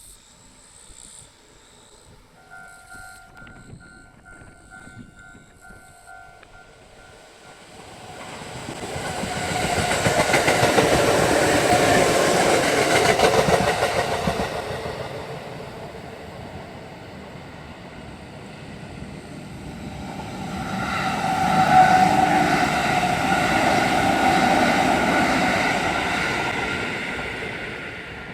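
Railway level-crossing alarm sounding a fast, steady run of two-tone dings. Then two trains pass the crossing one after the other, each growing loud and then fading, with the alarm still faintly ringing under them.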